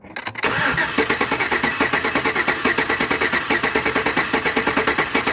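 Truck engine cranking over on its starter without firing, with an even chugging of about six pulses a second, for a compression test on a misfiring cylinder. That cylinder reads about 168, which is low compared with the others.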